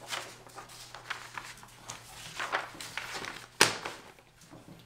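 A sheet of paper rustling and crackling as it is handled, in short bursts, with one sharp, louder crackle about three and a half seconds in.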